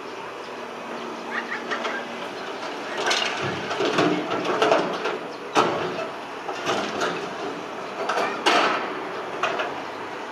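Sumitomo SH125 hydraulic excavator's diesel engine running steadily while its bucket dumps excavated soil and rubble into a dump truck's steel bed. A run of clattering thuds and rattles starts about three seconds in and dies away near the end.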